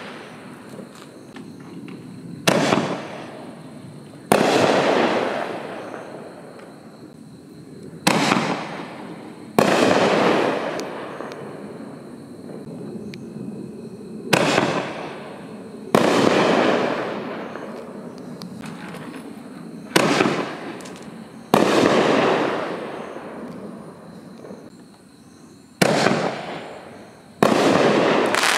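Consumer artillery shells (Assorted Artillery Shell FCC2015P) fired one after another from a mortar tube: five times a sharp launch bang is followed about a second and a half later by the louder bang of the shell breaking in the sky, each trailing off in a long echo.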